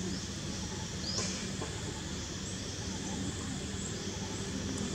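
Outdoor forest ambience: a steady high hiss with a short rising chirp repeating about every second and a half, the clearest about a second in, over a low steady hum.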